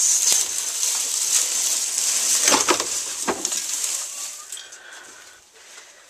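Dry hay crackling and rustling as it is handled and pushed about in a wire rabbit cage, with a few sharp knocks about two and a half to three and a half seconds in. The rustling dies away in the last couple of seconds.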